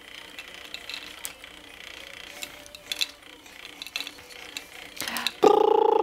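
Scattered faint clicks, then near the end a short, loud, pitched vocal noise from a baby, copying a sound he has been prompted to make.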